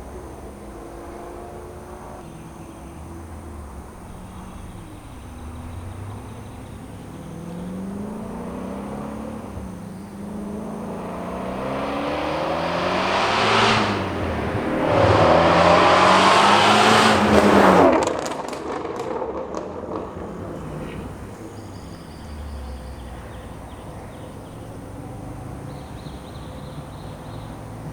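Whipple-supercharged 5.2-litre V8 of a 2019 Shelby GT350R (Hennessey HPE 850 package) on its stock exhaust, accelerating hard. The engine note rises in pitch in several pulls and grows louder, then cuts off sharply about eighteen seconds in and falls back to a quieter low rumble.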